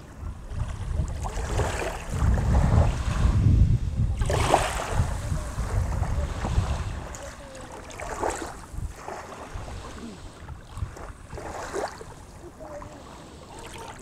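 Small Black Sea waves lapping and washing up onto a sandy beach at the water's edge, a wash every three to four seconds, with wind rumbling on the microphone.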